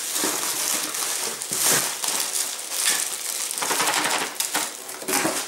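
Plastic wrapping crinkling and crackling irregularly as a wrapped package is handled and pulled out of a cardboard box.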